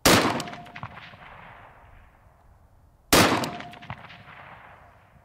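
Two shots from an unsuppressed AR-15 rifle in .223, about three seconds apart, each echoing and dying away over roughly two seconds. A faint short ring follows about half a second after each shot.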